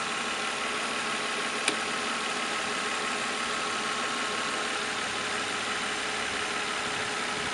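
Nissan Altima 3.5-litre V6 engine idling steadily with the A/C running, heard from the open engine bay. A single light click comes about one and a half seconds in.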